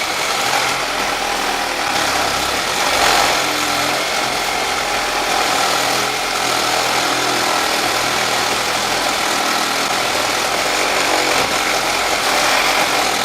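Makita 12V max CXT cordless reciprocating saw running steadily as its blade cuts through thick 10-gauge aluminum pipe. It is a slow cut for this light-duty saw.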